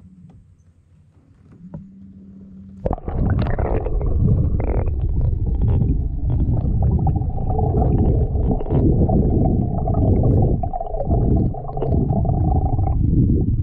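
Muffled underwater rumble and water noise from a camera held below the surface, starting suddenly about three seconds in, with scattered clicks and a steady whine through the middle.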